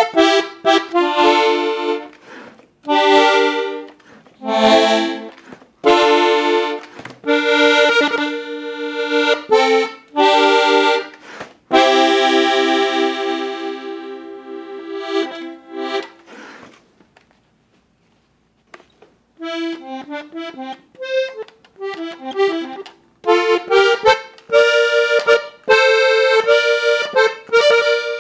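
Parrot accordion in the key of F being played: short chords and runs, then a long held chord that fades away. After a brief pause of about two seconds it starts again with quicker notes. The instrument is played to show that it has no air leaks and no damaged reeds, as the seller says.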